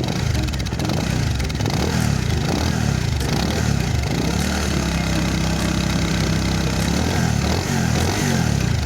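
Bajaj Pulsar 220 single-cylinder motorcycle engine revved through its exhaust: several quick blips rising and falling, then held at a steady higher pitch for a few seconds before dropping back near the end.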